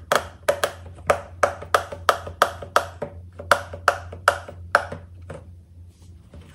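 Bubbles of a large silicone pop-it fidget toy being pressed in by finger one after another, a sharp pop about every third of a second. The pops stop about a second before the end.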